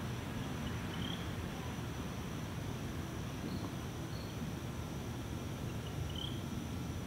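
Outdoor background ambience: a steady low rumble with a thin, steady high insect-like drone over it, and two short high chirps, about a second in and near the end.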